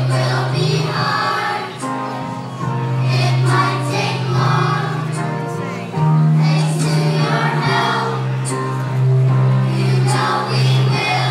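A children's choir singing a song together, with instrumental accompaniment of sustained low bass notes that change every second or two.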